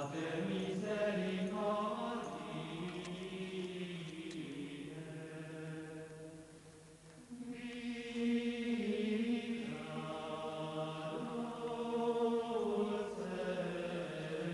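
Choir singing a slow church chant in long held notes. The singing thins out about six seconds in and comes back fuller about a second and a half later.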